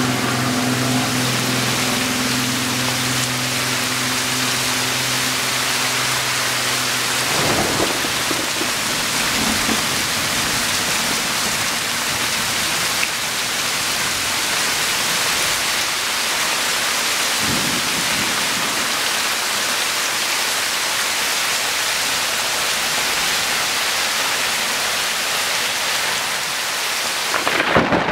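Heavy rain falling steadily, a dense even hiss of drops on ground and surfaces. A steady low hum runs under it for the first quarter or so and then stops.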